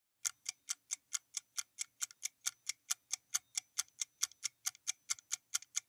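Clock-style ticking sound effect of a quiz countdown timer: a steady, fast tick about four to five times a second, starting a moment in.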